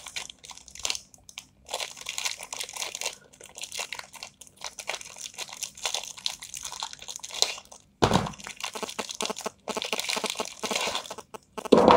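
A clear plastic packaging bag holding the headphones' accessory cables being handled and crinkled, with irregular crackling and a brief pause about eight seconds in.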